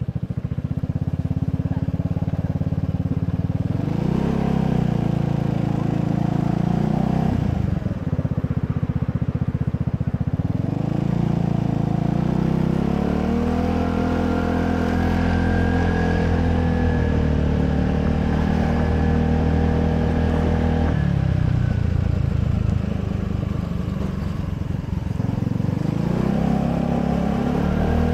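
Gilera Runner VXR 200 scooter's single-cylinder four-stroke engine heard from the rider's seat while riding in city traffic, speeding up and easing off. The revs climb about four seconds in, drop near eight seconds, climb again and hold steady for several seconds, drop near twenty-one seconds and climb once more near the end.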